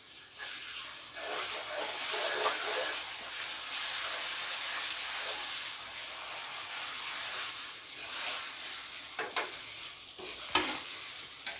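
Ginger-garlic paste sizzling in hot oil with browned chopped onions, being stirred in the pan; the sizzle starts just after the paste goes in. A few sharp knocks of the spatula against the pan come near the end.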